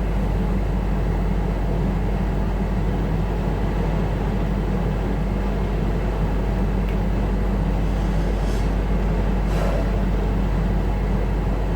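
Steady low hum with an even background noise, unchanging throughout, with a few faint clicks in the second half.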